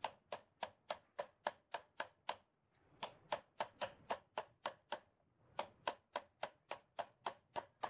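Quiet, quick hammer taps on a steel tube drift, driving a ball bearing onto a donkey pump's crankshaft by striking its inner race. The taps come about three or four a second, in three runs with short pauses between them.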